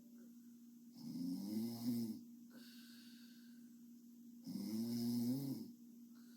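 A young woman snoring in her sleep: two snores, each about a second long and about three and a half seconds apart, over a faint steady hum.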